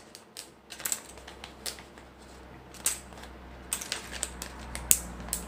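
Tiny plastic micro building blocks clicking and tapping as they are handled and pressed together by hand: an irregular scatter of short, sharp clicks.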